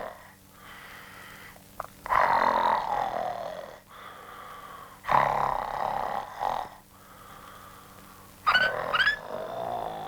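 Cartoon snoring: a loud, drawn-out snore about every three seconds, followed near the end by a few quick rising whistles.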